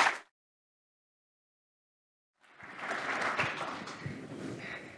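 Audience applause that drops out to dead silence a moment in, then comes back softer about two and a half seconds in.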